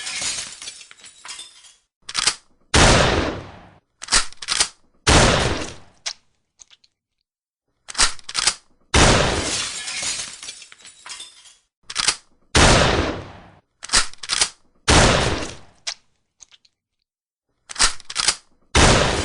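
Shotgun fired five times, a few seconds apart, with each shot trailing off over about a second. Before each shot there are one or two quick, sharp mechanical clacks, the action being worked to chamber the next shell.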